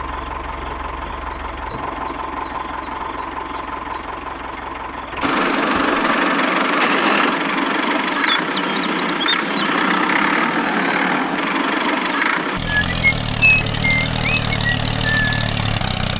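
Tractor diesel engine running. It starts as a steady idle, becomes a louder, rougher run about five seconds in, and changes to a deeper steady engine note about twelve seconds in, with birds chirping over it.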